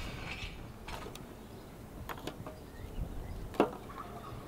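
Charcoal briquettes being set down by hand in a rusty steel mangal: a few separate sharp clicks and knocks, the loudest a little after three and a half seconds in.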